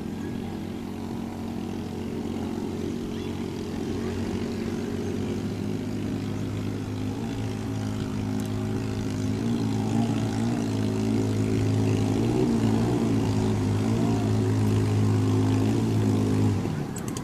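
Engine of a racing motorized outrigger boat (banca) running flat out as it speeds by, a steady drone that grows louder as the boat comes closer. Its pitch wavers in the middle, and the drone cuts off suddenly just before the end.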